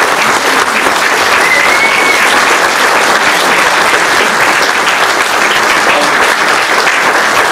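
An audience applauding: a hall full of people clapping steadily.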